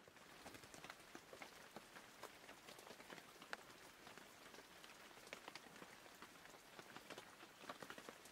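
Faint rain: scattered raindrops striking a surface as many irregular small ticks over a soft hiss.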